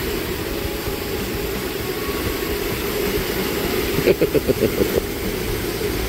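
Mountain stream rushing over boulders in a small cascade: a steady, unbroken rush of water. About four seconds in, a person's voice gives a short, rapid run of pulses.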